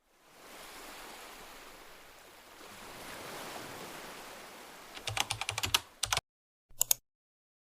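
A soft, even rush like surf fades in. About five seconds in, a quick run of computer keyboard typing clicks begins, then stops abruptly, and a short second burst of keystrokes follows.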